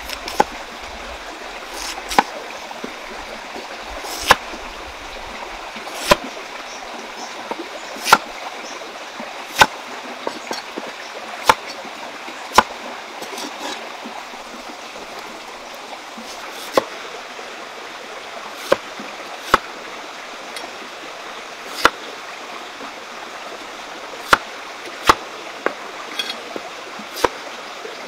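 Kitchen knife cutting a peeled potato on a wooden chopping board: sharp single knocks as the blade strikes the board every second or two, with a pause of a few seconds in the middle, over a steady rushing hiss.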